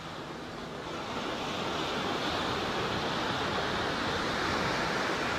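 Steady rushing wind noise on the microphone, swelling over the first second or so and then holding.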